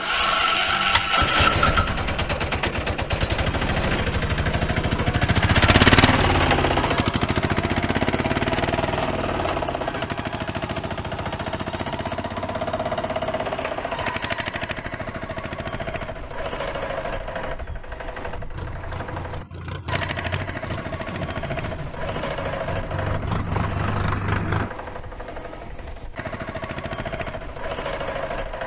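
Tractor engine running steadily, with a louder surge about six seconds in.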